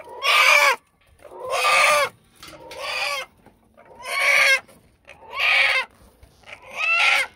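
Rooster held upside down by its legs, squawking in distress: about six loud drawn-out calls in a row, roughly a second and a half apart, that sound like "Allah, Allah".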